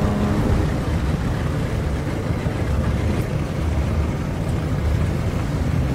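Off-road jeep driving, a steady rumble of engine and rough-road noise without a clear engine pitch.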